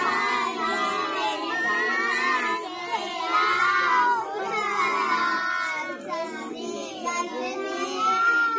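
A group of children singing together, many voices overlapping.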